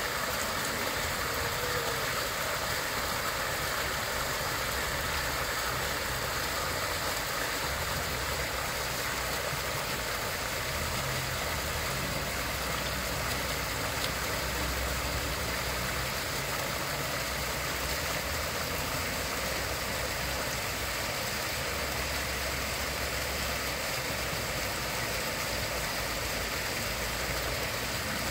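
Water jets of a small fountain splashing into its basin: a steady rushing of water, with a low rumble underneath.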